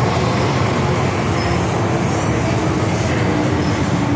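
Steady interior running noise of an MTR M-Train (Metro-Cammell EMU) underway: a continuous rumble of wheels on rail and running gear heard from inside the carriage.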